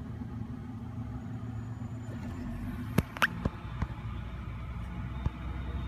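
Steady low mechanical hum, with a few sharp clicks and a short metallic clink about three seconds in.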